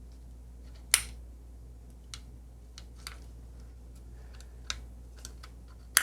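Clicks and light taps of small metal and plastic parts being handled as a guitar pedal is taken apart: one sharp click about a second in, scattered quieter ticks, then another sharp click at the very end.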